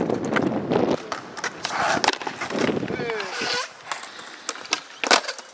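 Skateboard wheels rolling on smooth concrete flatground, then the clack of the board being popped and landed in a flatground trick. One loud sharp slap of the board comes about five seconds in.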